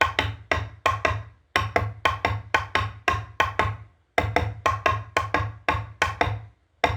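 Rhythmic wooden percussion music: sharp, ringing knocks about four a second, played in repeated phrases with short breaks between them.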